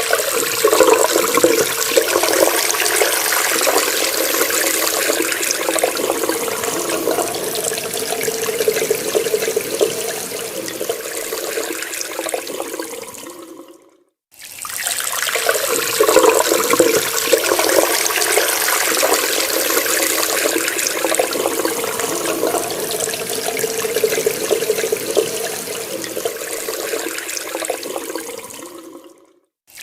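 Water running from a tap in a steady, splashing stream. It fades out to a moment of silence about halfway through and fades back in, then fades out again near the end.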